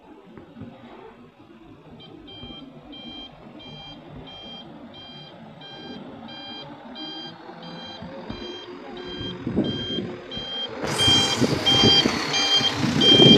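A loaded dump truck's reversing alarm beeping at an even pace, about twice a second, getting louder as the truck backs closer. About eleven seconds in, the truck's engine rumble and a rush of noise swell up loudly as it comes alongside.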